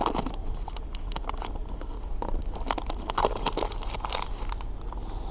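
Paper wrapper on a stick of butter being peeled open by hand: an irregular run of short crackles.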